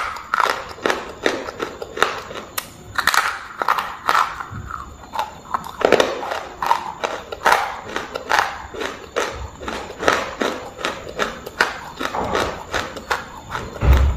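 Close-up crunching and chewing of brittle pieces of shale: a rapid run of sharp crunches, about two to three a second. A low thud comes near the end.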